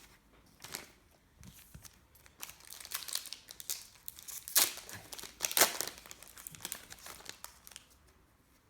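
A trading-card pack's wrapper being torn open and crinkled: irregular crackling, with two louder crackles about four and a half and five and a half seconds in.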